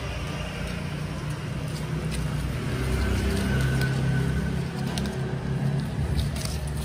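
A low engine rumble that swells to its loudest about halfway through, then eases, with faint clicks over it.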